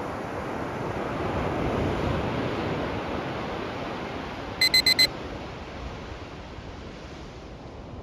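Ocean surf washing onto a beach, swelling about two seconds in and then easing off. Near the middle, a digital timer alarm beeps four times in quick succession as the countdown reaches zero.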